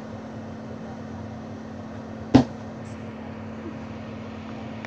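A single sharp knock about two and a half seconds in, over a steady low electrical hum.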